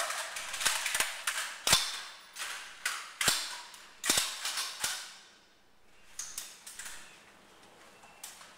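Rifle shots on an indoor firing line: a string of sharp reports, about seven irregularly spaced in the first five seconds, each with a short echo, then a few fainter shots from further down the line.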